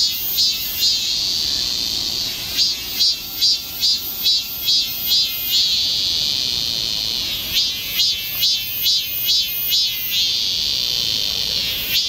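Cicadas singing: a high pulsing call of about two to three strokes a second, which breaks three times into a long steady buzz lasting about two seconds.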